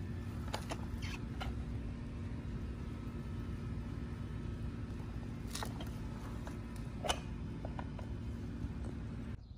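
A steady low background hum, with a few light clicks and knocks of hard plastic vacuum parts being handled and a knob being turned.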